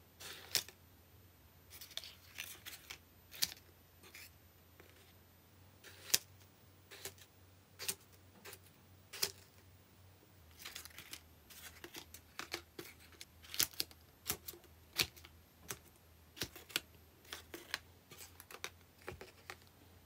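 Folded-paper origami pop-it domes snapping in and out under a fingertip: a string of sharp, irregular paper clicks, coming more often in the second half.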